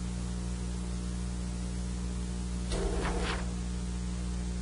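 Steady electrical mains hum with hiss on the meeting-room recording. A brief faint rustle comes about three seconds in.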